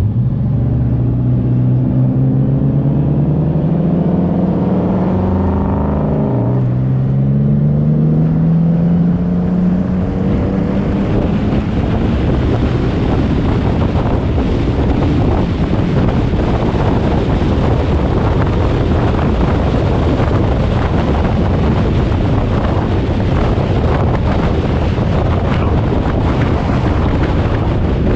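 Twin-turbo Nissan 350Z's 3.5-litre V6 accelerating hard: revs climb through one gear, drop sharply with an upshift about six and a half seconds in, then climb again. From about twelve seconds on, a loud, even rush of engine and wind noise covers the engine note.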